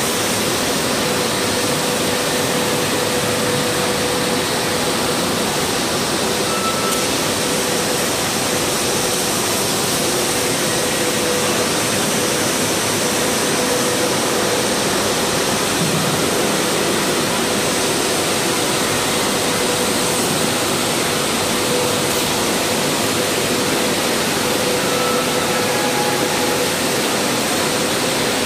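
Steady, even roar of stone-slab factory machinery, with a faint steady tone beneath it.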